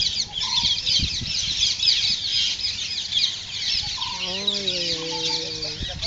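Dense, continuous high-pitched chirping of many birds. A single drawn-out lower call, falling slightly in pitch, comes in about four seconds in and lasts nearly two seconds.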